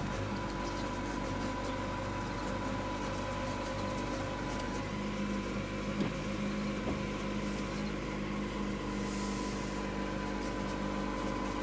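Pontiac Wave's four-cylinder engine idling steadily just after a cold start, heard from inside the cabin.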